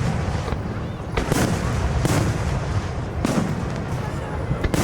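Aerial fireworks shells bursting in a series of booms about a second apart. Each bang trails off in a rumbling echo.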